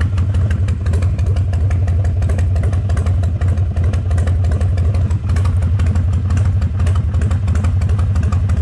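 Harley-Davidson 1200 V-twin engine idling steadily, with its dense, even beat of firing pulses. It is running on a newly installed ignition switch.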